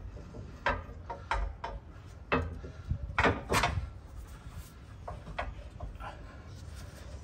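Clunks and scrapes of a new Dobinsons 2-inch lift coil spring being pushed and worked by hand up into its rear spring seat. The spring's extra length makes it really difficult to get up into place. Several sharp knocks come in the first four seconds and a few lighter ones after.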